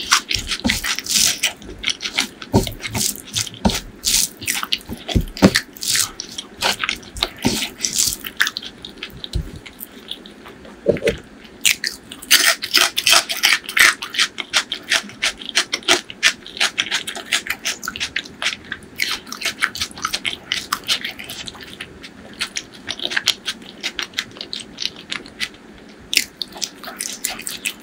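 Close-miked eating of chicken liver and gizzard curry with rice: a dense run of wet chewing, lip smacks and sticky mouth clicks, with occasional crunchy bites in between.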